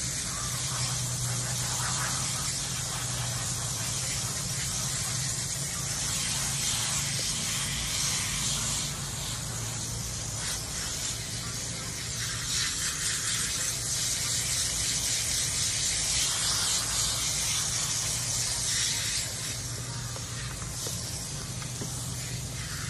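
Garden hose spray nozzle hissing steadily as water is sprayed onto a dog's soapy coat and the wet concrete during rinsing, with a steady low hum underneath.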